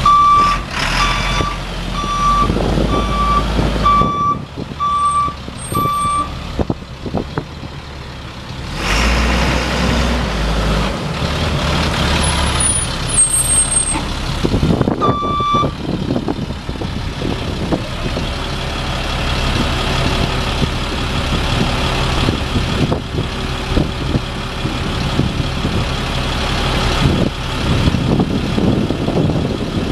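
A 2003 Chevrolet W7500 dump truck's Caterpillar 3126 six-cylinder turbo diesel runs while a warning beeper sounds about once a second for the first six seconds and once more about halfway through. The diesel then idles steadily for the second half.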